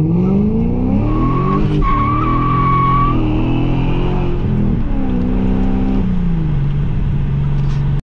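BMW E39 540i's 4.4-litre V8 accelerating hard, heard from inside the cabin. Its pitch climbs and drops back several times as it shifts, then settles near the end, where the sound cuts off abruptly. A high tyre squeal starts about a second in and lasts about two seconds.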